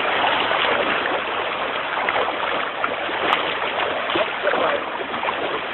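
Steady rushing wash of surf on the shore.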